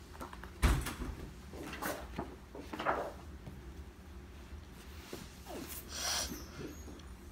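Scattered knocks and taps from handling and tapping a tablet, with one sharp thump a little under a second in.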